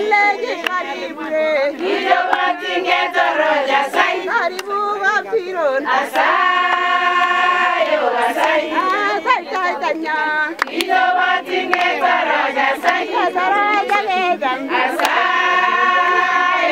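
A group of voices singing together without instruments, holding long notes, with hands clapping along at times.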